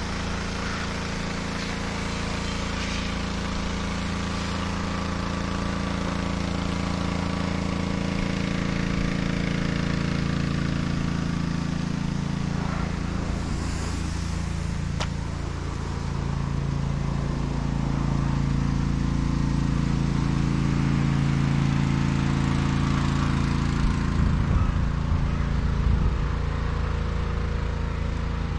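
A motor vehicle's engine running as a steady low drone that grows louder past the middle, with a few knocks near the end.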